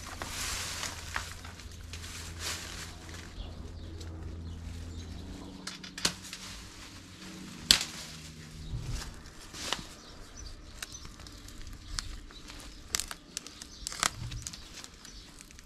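Dense garden shrubbery rustling and crackling as it is pushed through and cut back by hand, with a scattering of sharp snaps from branches and secateurs cutting.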